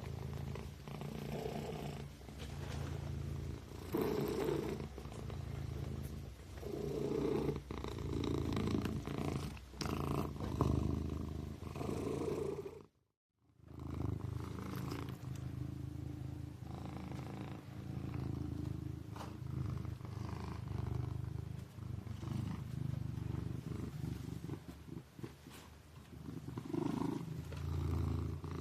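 Kitten purring steadily, swelling and easing every second or two. The sound cuts out completely for about half a second near the middle.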